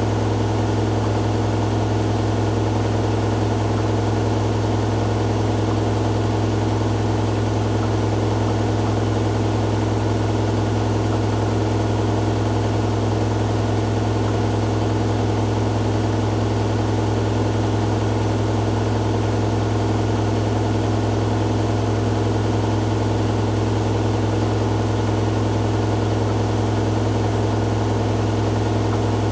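Hoover Dynamic Next DXA610IW3 front-loading washing machine on its spin cycle, the drum spinning at a constant speed with a steady low hum that does not change.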